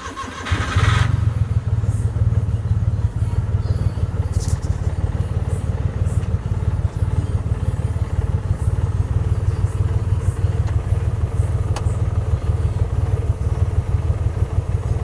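Daihatsu Hijet 1000's engine cranking and catching about half a second in, then idling steadily with a low, uneven rumble. This is its first start after two months standing unused.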